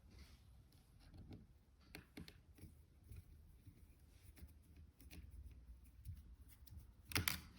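Faint small clicks and light scrapes of a Phillips screwdriver driving screws into a laptop hinge, with a louder sharp click near the end.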